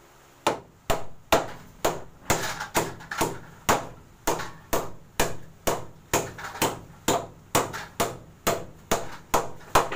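Claw hammer striking inside a wooden wall-mounted cabinet, fixing it to the wall with steady blows, about two to three a second, starting about half a second in.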